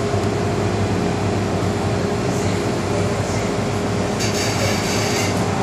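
Cabin noise inside an MTR M-Train subway car: a steady hum with one held tone. A brief high hiss comes about four seconds in.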